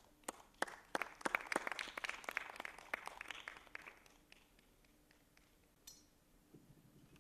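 Audience applauding: a few scattered claps that thicken about a second in and die away about four seconds in.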